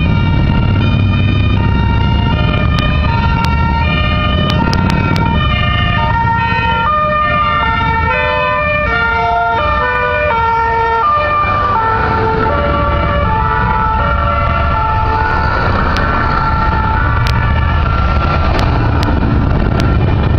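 Several fire engine two-tone sirens sounding at once, each switching between a high and a low note about every half second and out of step with one another, over a steady low rumble of engines including motorcycles.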